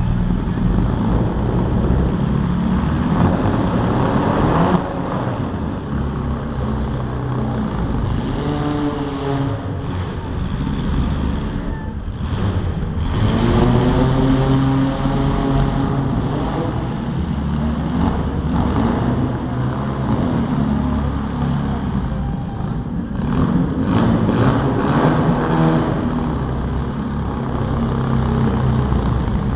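Several compact demolition-derby cars with their engines running hard and revving, the pitch rising and falling as they accelerate.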